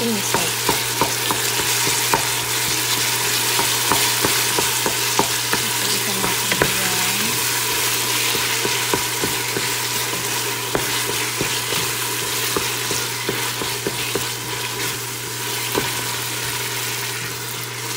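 Onions, garlic and tomatoes sizzling in hot oil in a metal pot while a wooden spatula stirs them, with frequent light clicks and scrapes of the spatula against the pot: sautéing the base for a sinigang.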